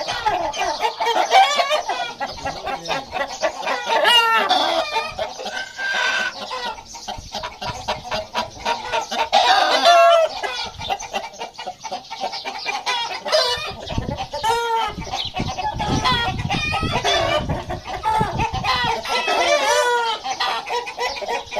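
A flock of Aseel roosters and hens clucking, with roosters crowing now and then; calls overlap throughout. A low rumble runs under them for a few seconds in the middle.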